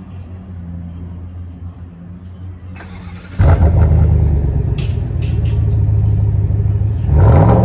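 Chevrolet Silverado 6.2-litre V8 running through a muffler-delete exhaust with the resonators left in. It idles with a deep, steady note, suddenly gets much louder about three and a half seconds in, and revs briefly near the end.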